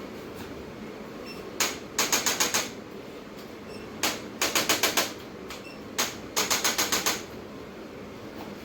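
Three bursts of sharp, rapid tapping clicks. Each burst is a single click followed a moment later by a quick run of about six clicks.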